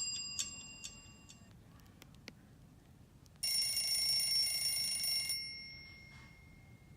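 Nokia 6790 ringtones playing from the phone's loudspeaker. A melodic ringtone fades out, a click follows, then a bright, buzzy electronic tone starts abruptly, holds for about two seconds and cuts off, leaving one note that fades away.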